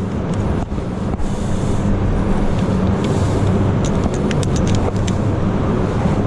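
An engine running steadily with a low hum. A few faint clicks come about four to five seconds in.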